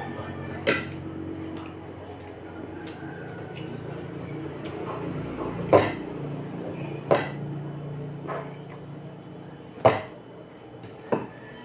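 A fork and fingers clinking against a ceramic plate while pork is torn apart: about ten sharp, irregular clinks, the loudest about six and ten seconds in, over a steady low hum.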